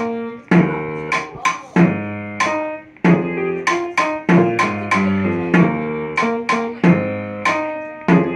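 Instrumental music from a school band: sharply struck chords that ring out and fade, repeating in a steady rhythm about every half second.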